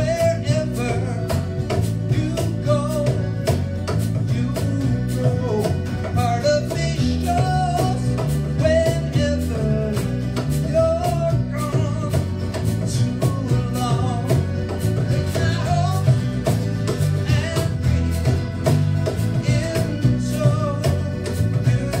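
Live folk-rock band playing an instrumental passage: accordion melody over electric bass, strummed acoustic guitar and hand percussion keeping a steady beat.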